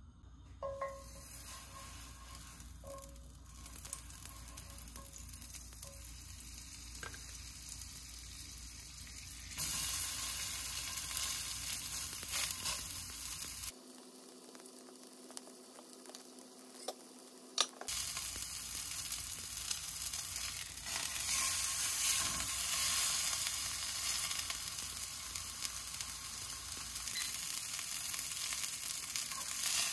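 Food sizzling as it fries in a hot pan, spliced from several clips. The sizzle gets louder about ten seconds in, gives way to a quieter stretch with a faint low hum around the middle, then comes back.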